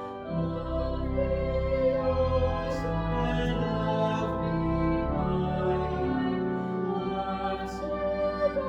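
A hymn sung with instrumental accompaniment: sung words over held notes with a deep bass line, the notes changing about once a second.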